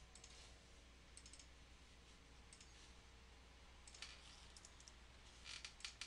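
Near silence with a few faint, scattered clicks of a computer mouse.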